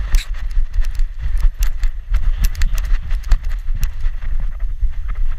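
Handling noise from a GoPro strapped to a trotting dog's back: irregular knocks and clicks at about two to four a second over a jittery low rumble as the camera mount jolts with each step.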